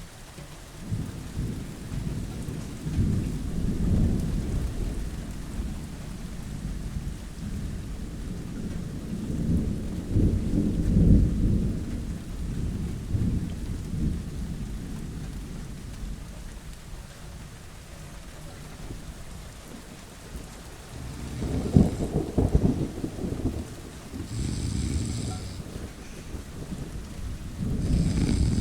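Thunderstorm: steady rain with long rolling rumbles of thunder through the first half. Shorter low rumbles come in bursts near the end.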